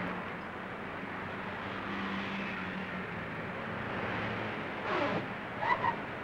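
Road traffic, cars and trucks driving past with a steady engine hum. About five seconds in a brief falling tone sounds, then two short high chirps near the end.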